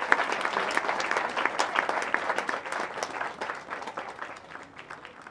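Audience applauding, the clapping dense at first and thinning out over the last couple of seconds.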